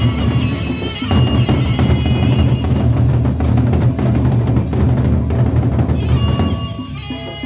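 Gendang beleq ensemble playing: large double-headed gendang beleq drums beaten fast and loud together with clashing hand cymbals. The drumming surges in about a second in and drops back near the end, where a reedy wind melody comes through.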